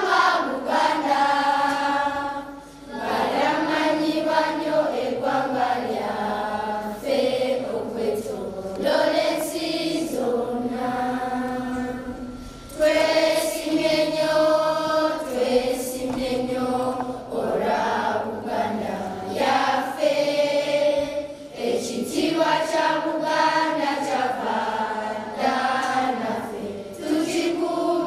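A group of schoolchildren singing together in chorus, long held notes in phrases broken by short pauses for breath.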